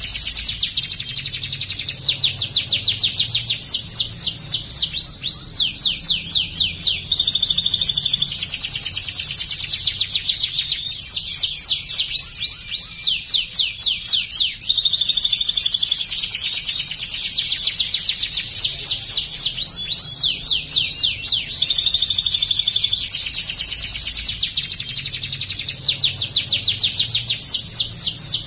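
White domestic canary singing nonstop in ciblek style (copying the bar-winged prinia): long, rapid trills of high, fast-repeated notes, switching to a new trill every couple of seconds.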